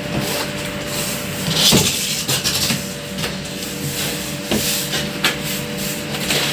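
Cardboard microwave-oven box being opened by hand: irregular rubbing and scraping with scattered clicks, and a longer hissing scrape about a second and a half in.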